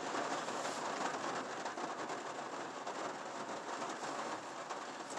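Steady thunderstorm rain falling on a pickup truck's roof and windows, heard from inside the cab: an even hiss of many small drop impacts.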